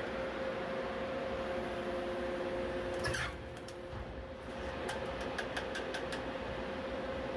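Hydraulic catalytic-converter guillotine running with a steady hum. About three seconds in there is a brief rush, after which the machine runs quieter. Near the end come a few light metallic clinks as converter pieces are handled on the steel grate.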